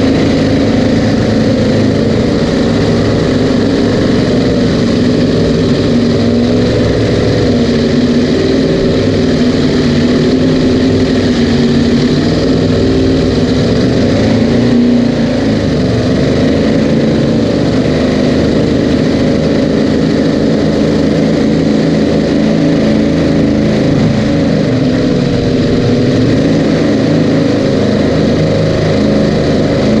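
Twin supercharged 598-cubic-inch big-block V8 engines of a Cigarette Racing Top Gun 38 powerboat running at a steady, loud pitch, which sways slightly about halfway through and again near the end.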